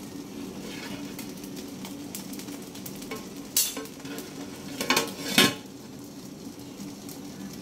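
Aluminium pot lid clanking against the rim of a pot of cooked rice as it is lifted off and handled, with three sharp clinks between about three and a half and five and a half seconds in, over a steady low hum.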